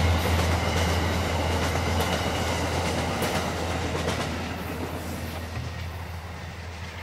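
Amtrak passenger train's stainless-steel cars rolling past on the rails, a steady rumble with faint clicks of the wheels over the track, fading away as the end of the train recedes.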